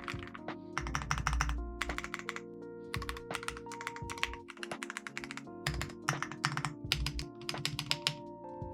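Typing on a stock aluminum, gasket-mounted Yunzii AL71 mechanical keyboard with Gateron Milky Yellow switches and jello keycaps: quick runs of keystrokes broken by short pauses, over background music.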